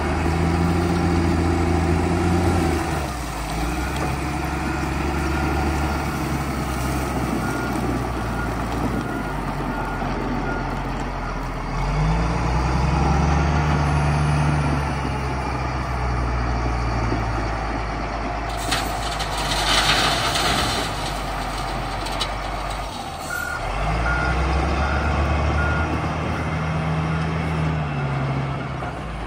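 Caterpillar 966F wheel loader's diesel engine revving up and dropping back several times as it works. Its reversing alarm beeps in two runs, and a burst of hissing comes about two-thirds of the way through.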